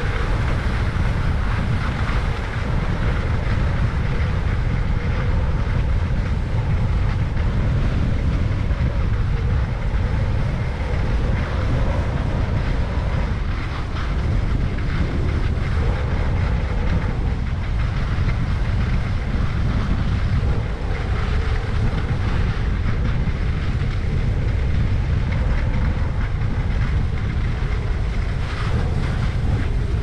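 Steady rushing rumble of wind buffeting a helmet-mounted GoPro's microphone, mixed with the hiss and scrape of skis running over snow.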